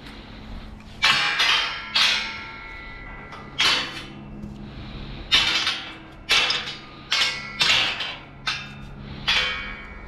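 About a dozen sharp metallic clanks at irregular intervals, each ringing briefly, over a faint low hum.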